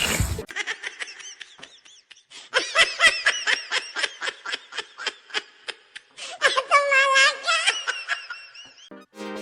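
High-pitched laughter in rapid repeated bursts, several a second, in two long runs with a short pause between.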